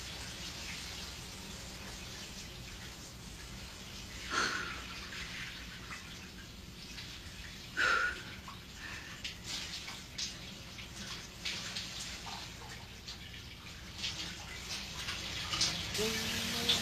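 Faint, steady running water, like a tap or shower running, with two short, sharper sounds about four and eight seconds in.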